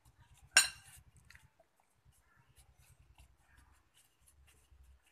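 Metal spoon stirring chopped fruit in a glass bowl: soft, irregular scraping, with one sharp ringing clink of spoon against glass about half a second in.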